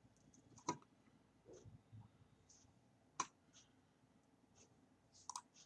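Two sharp computer mouse clicks, about 0.7 s and 3.2 s in, with a few fainter ticks between them, over near silence.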